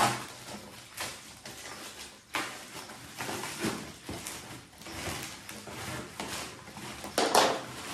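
Protective packaging wrap rustling and crinkling as it is handled and pulled open, in several bursts, with the loudest crackle near the end.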